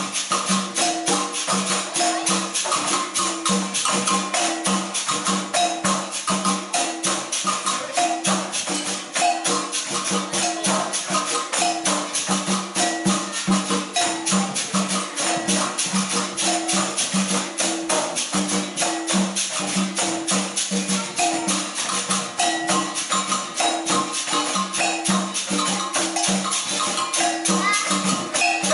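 Live capoeira roda music: berimbaus, pandeiros and an atabaque drum playing together in a steady rhythm, over a fast continuous rattle of jingles and shakers. The music stops abruptly at the very end.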